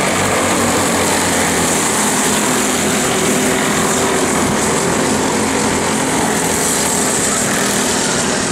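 Several racing go-kart engines running together at race speed, a steady drone of small motors as the pack circles the track.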